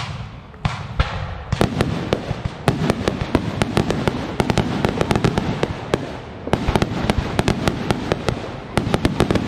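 Fireworks going off: a few sharp bangs in the first second or so, then a dense run of rapid crackling pops. The pops ease briefly around six seconds in and pick up again.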